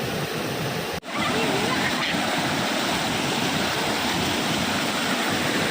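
Waterfall swollen by a flash flood, water rushing steadily, with a sudden brief dropout about a second in and faint voices behind it.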